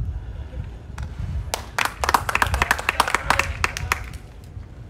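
A small crowd of spectators clapping for about two and a half seconds, starting about a second and a half in, over a steady low rumble.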